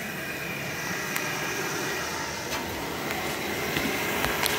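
Triangle Tube Prestige Solo gas boiler running with its burner lit: the combustion blower fan and burner give a steady whooshing hum. The boiler is firing normally on a new igniter. A few faint clicks come near the end.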